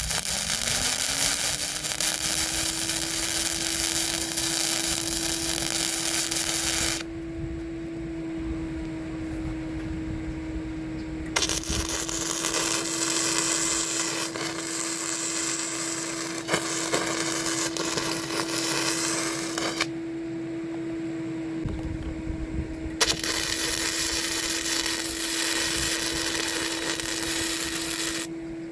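An electric power tool's motor spins up over the first couple of seconds and then runs at a steady pitch. Three long stretches of harsh hissing work noise, each several seconds long, stop and start over it.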